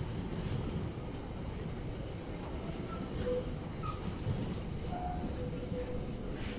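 A train rumbling through the station: a steady low rumble, with a few short, faint squeaks in the second half.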